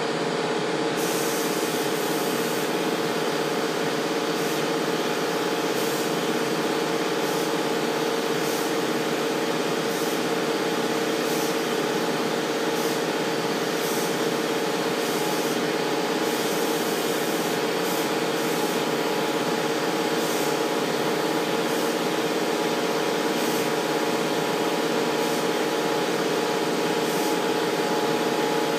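Gravity-feed paint spray gun on a compressed-air hose hissing in short bursts, about one every second or two, as it is triggered for each pass, over a steady mechanical drone.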